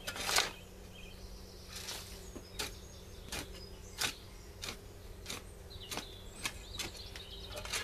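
A shovel digging into a heap of old rotted manure, about ten short scrapes and knocks as the blade goes in, with faint birdsong behind.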